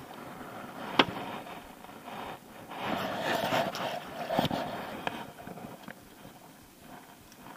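Handling noise in an aluminium jon boat as a caught largemouth bass is let go over the side: a sharp knock about a second in, a stretch of rustling and splashing around three seconds in, then another knock.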